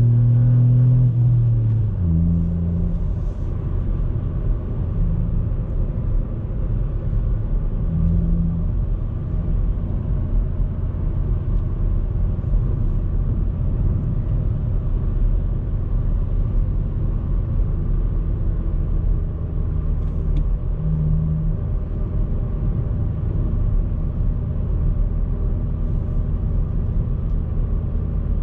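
Ford Fiesta ST Mk8's 1.5-litre turbocharged three-cylinder engine pulling under load, easing off about two seconds in, then a steady low cruising drone with road rumble.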